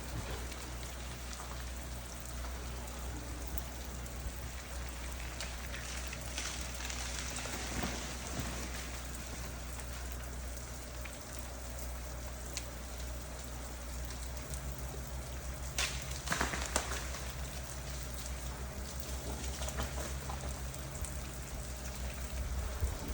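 Steady patter of drops and bits of ice falling through ice-coated trees after freezing rain, with a few sharper ticks and clatters.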